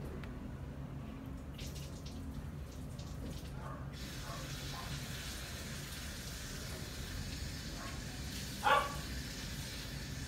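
Siamese kitten giving one short, loud meow about nine seconds in, over a steady low hiss and hum.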